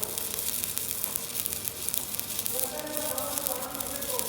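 Stick (MMA) arc welding with a 3.2 mm cast-iron electrode at about 90 A on a cast-iron gearbox housing: the arc gives a steady, crackling sizzle.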